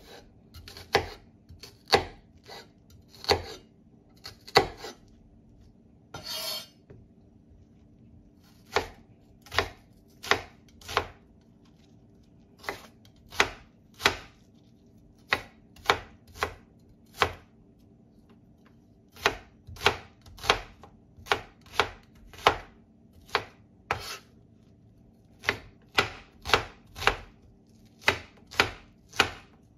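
Kitchen knife chopping a red onion on a wooden cutting board: sharp knocks of the blade hitting the board, irregular, about one or two a second with short pauses. A brief rustling noise comes during a pause a few seconds in.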